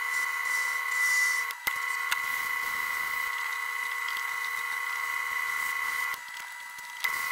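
Metal lathe running with a steady whine while a tool cuts a steel spigot, with a hiss from the cut. About six seconds in the whine drops away as emery cloth is held to the spinning work.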